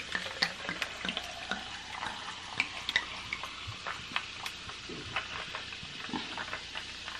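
Sparkling water being poured from a glass bottle into a tumbler, fizzing with a steady hiss and many small crackling pops.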